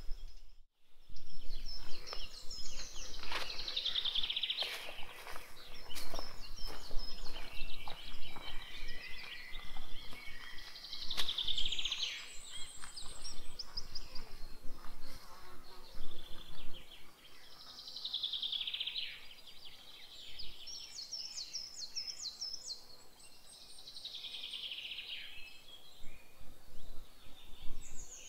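Woodland birdsong: a songbird repeats a trilled phrase that falls in pitch, about every six to seven seconds, with other birds chirping around it. Scattered clicks and rustles in the first half.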